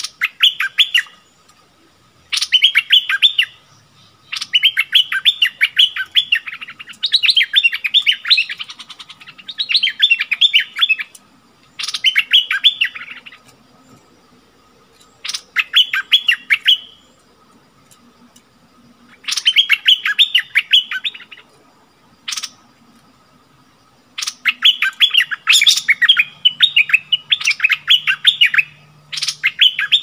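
Bulbuls singing at each other: a caged decoy bulbul and a wild bulbul, in about a dozen loud bursts of quick notes, each a second or two long. A faint steady high hum runs underneath.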